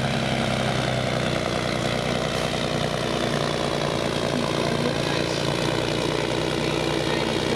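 Volvo F16 pulling truck's straight-six diesel engine running steadily under full load as it drags a weight-transfer sled down the track.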